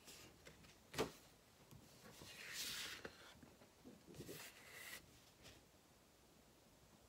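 Large sheets of inked comic-art paper being handled and swapped: a sharp tap about a second in, then the paper rustling and sliding twice.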